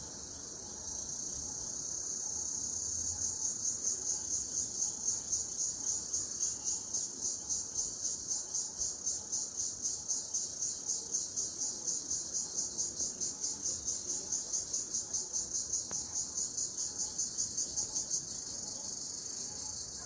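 A chorus of insects calling in the forest: a steady high-pitched buzz that swells about a second in, turns into a rhythmic pulsing trill of about three pulses a second, and drops back to a steady buzz near the end.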